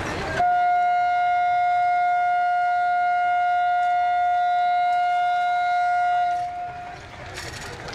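Horn of a WDP-class Indian Railways diesel locomotive: one long steady blast of about six seconds on a single note, sounded as a warning to people walking on the track ahead.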